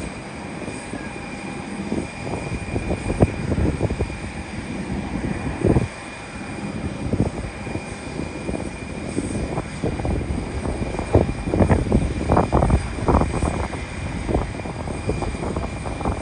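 Jet airliner engines at an airport: a steady high whine over an uneven low rumble that grows louder about ten seconds in.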